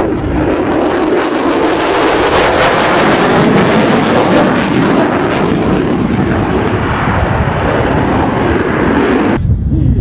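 Lockheed Martin F-35A Lightning II's single Pratt & Whitney F135 turbofan running at full power in afterburner: a loud, rushing jet noise whose high hiss eases after about five seconds as the jet banks away.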